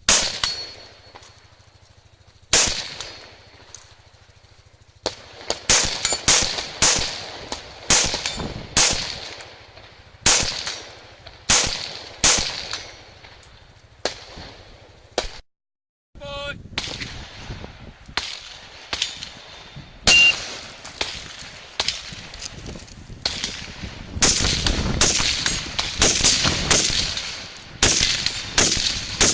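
Rifle shots fired in quick strings during a practical rifle stage, each crack followed by an echo. The shots come about one or two a second, break off briefly about halfway through, then come faster and closer together near the end.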